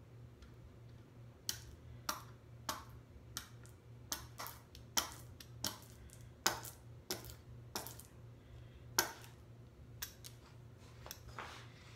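A rubber brayer rolled back and forth through thick block-printing ink on an inking plate, making a run of sharp clicks and smacks about every half second. A low steady hum runs underneath.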